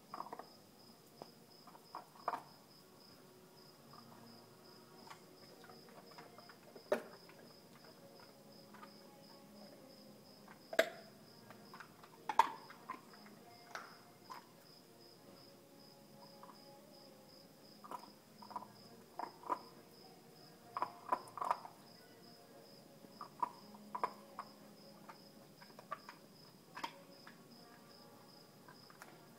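A standard poodle gnawing a cross-section of marrow bone: irregular crunches and sharp cracks, some in quick clusters, over the steady high trill of crickets.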